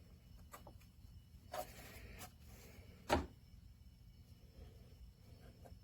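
Handling noises of a bench power supply being turned over and examined: a few light clicks, a short scrape about a second and a half in, and a single knock a little after three seconds.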